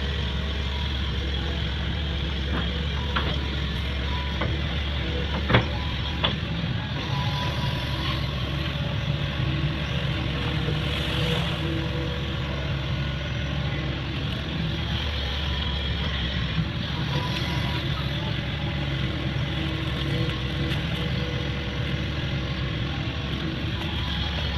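Hydraulic excavator's diesel engine running steadily while it works clearing a ditch, with a sharp knock about five seconds in and a lighter one just after.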